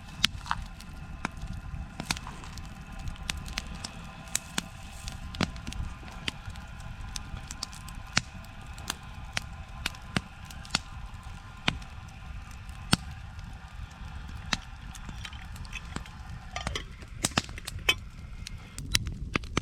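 Wood campfire crackling, with irregular sharp pops and snaps over a low steady rush of the flames.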